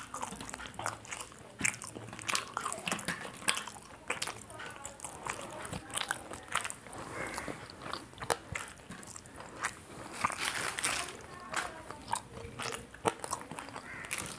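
A person eating grilled chicken by hand: close-up chewing, biting and crunching, with many irregular sharp smacks and clicks.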